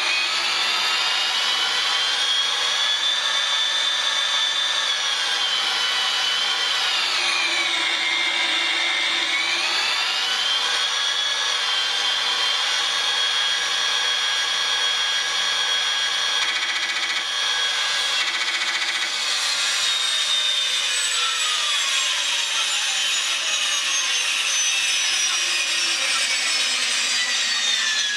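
Airwolf helicopter turbine sound effect from a TBS Mini RC sound module, played through its small speaker: a steady, high-pitched turbine whine that dips in pitch and recovers about a third of the way in, then falls in pitch over the last several seconds.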